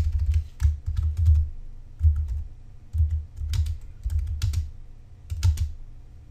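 Typing on a computer keyboard: quick runs of keystroke clicks with short pauses between them, each run carrying dull low thumps, and the typing stops shortly before the end.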